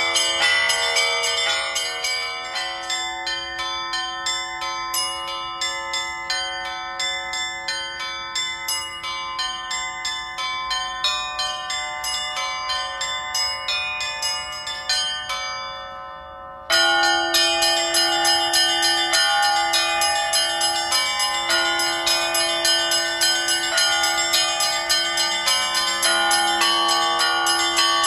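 Bells ringing in a rapid, even run of strikes, about three a second, each note ringing on. The ringing fades a little, then cuts abruptly back to full loudness about seventeen seconds in.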